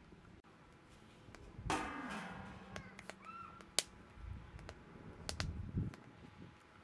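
A single loud animal call with a falling pitch about two seconds in. It is followed by scattered sharp clicks and knocks, a few short bird chirps and some dull low thuds.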